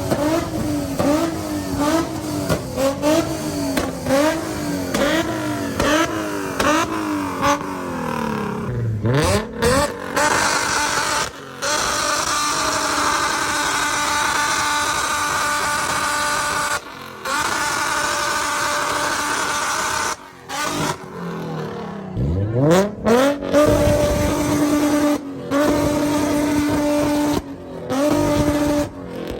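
Car engine revved hard again and again, rising and falling about twice a second, then held at high revs with sudden brief cut-outs. Near the end it revs up again and holds a steady pitch, broken by a few more short cut-outs.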